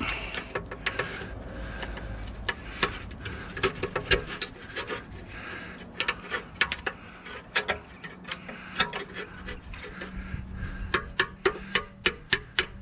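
Steel tool scraping and levering against a steel circlip on a suspension bush, with scattered clicks and rasps as it slips and catches. About eleven seconds in this gives way to a steady run of sharp metal taps, about three a second: a hammer tapping the tool against the clip.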